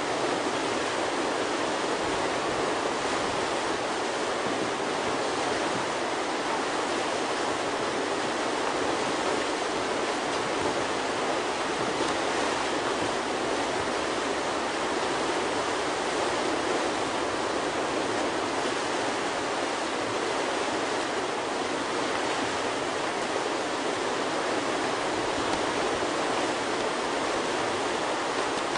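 River whitewater rushing steadily through a standing wave and hole, a constant even noise of churning water with no breaks.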